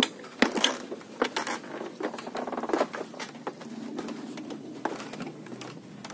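Footsteps on a floating bamboo raft: irregular knocks and clatters of bamboo poles underfoot, with a short rattle about two and a half seconds in.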